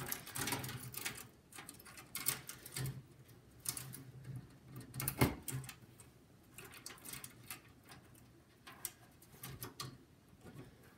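Irregular small clicks and rustles of wires and plastic connectors being handled and pushed onto pins, as front-panel cables are plugged back into a computer motherboard.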